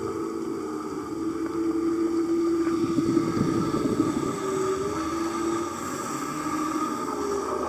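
Muffled underwater sound picked up through a dive camera's housing: a steady droning hum that wavers slightly in pitch, with a louder stretch of rushing noise between about two and four seconds in.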